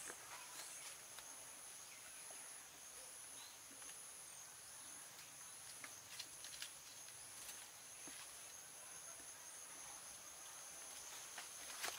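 Faint, steady high-pitched trilling of insects, two even tones held together, with scattered faint clicks and rustles and a sharper click near the end.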